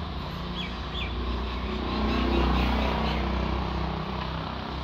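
Low engine hum of a motor vehicle, swelling to its loudest about halfway through and then fading, as if it passes by.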